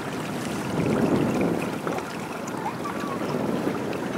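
Wind rushing over the microphone, with water washing along the hull of a small sailboat under way.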